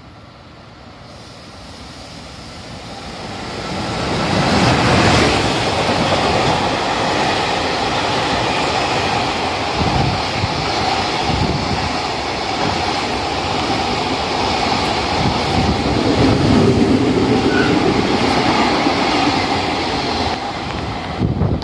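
A JR Freight EF210 electric locomotive hauling a container freight train passes through the station without stopping. Its rumble grows louder over the first four to five seconds as the locomotive approaches and goes by. Then comes the steady rolling and clatter of the container wagons' wheels over the rails, easing slightly near the end.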